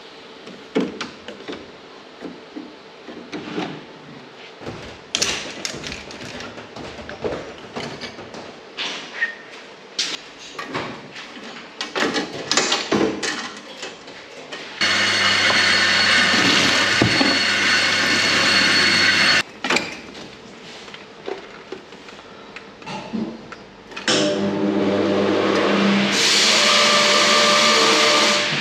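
Hand tools clinking and knocking on metal car parts, then a cordless power tool runs steadily for about five seconds in the middle and again for the last few seconds.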